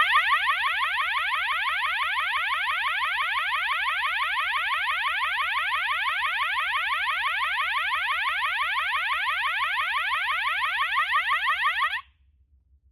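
System Sensor MA/SS-24D fire alarm horn sounding its fast warble tone: a loud electronic tone sweeping rapidly upward over and over, several sweeps a second, until it cuts off suddenly near the end.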